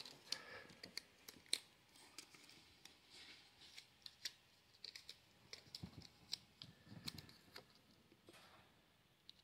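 Faint, scattered small clicks and taps of plastic toy pieces being handled.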